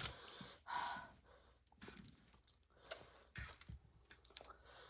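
Close-miked eating sounds: scattered light clicks of utensils on a bowl and chewing, with a short breathy exhale about a second in.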